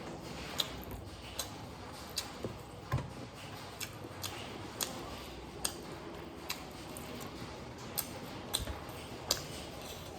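Eating sounds at close range: irregular sharp mouth clicks and smacks from chewing, roughly one every second, with one duller knock about three seconds in.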